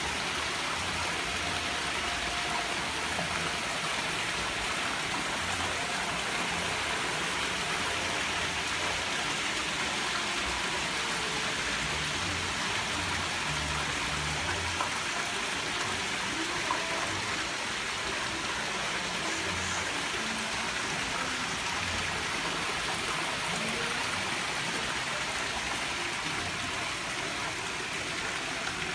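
Water from a tiled wall fountain splashing steadily: a spout pours into a basin that spills over its edge in a wide sheet into a pool below.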